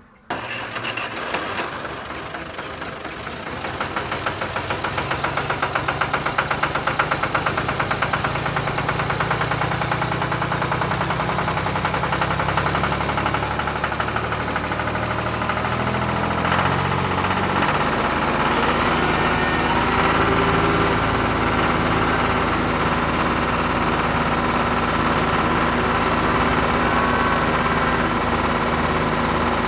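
Tractor engine idling and running steadily with a rapid, even pulse. It gets louder a few seconds in, and from about halfway through it holds a steadier pitch.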